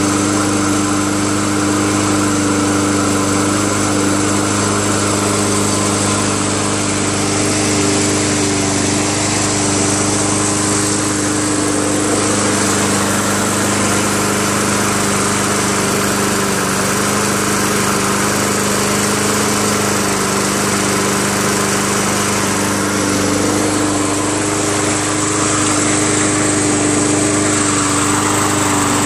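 A Honda 5.5 hp lawn mower engine on a self-propelled mower running steadily at a constant speed, just after its carburetor was cleaned and its choke linkage adjusted.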